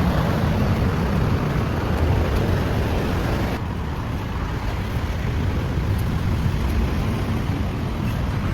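Steady road traffic noise, a low rumble of passing vehicles; the hiss in the upper range drops off abruptly about three and a half seconds in.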